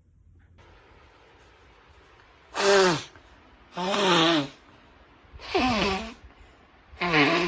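A person sneezing four times in quick succession, about one and a half seconds apart, each sneeze voiced and falling in pitch.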